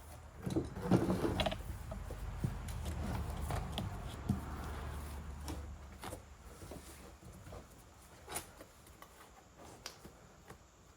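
Faint scattered knocks and clicks over a low rumble that fades out after about six seconds.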